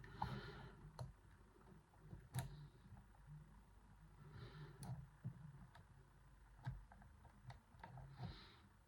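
Faint, scattered small clicks and light scrapes at irregular intervals from a homemade pick working the sliders inside a Yuema-style slider lock.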